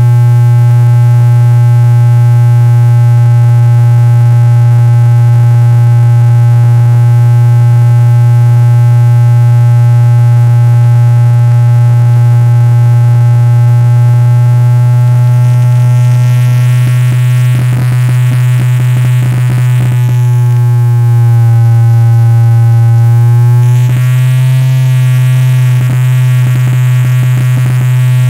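Electronic noise music: a loud, steady low synthesizer drone with many overtones. About halfway through, hiss and crackling join it, and a little later the drone's upper tones sag in pitch and come back up.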